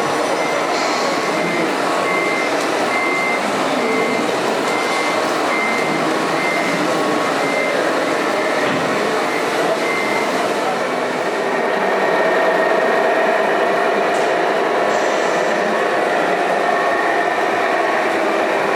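Reversing beeper of an RC model truck's sound module, beeping evenly about one and a half times a second over the running noise of model trucks and hall chatter. The beeping stops about ten seconds in and a louder steady hum takes over.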